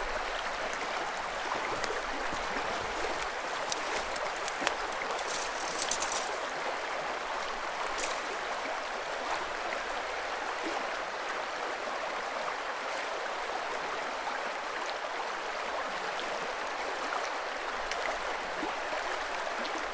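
River water rushing steadily over a shallow, rocky stretch, with a few faint clicks about five to eight seconds in.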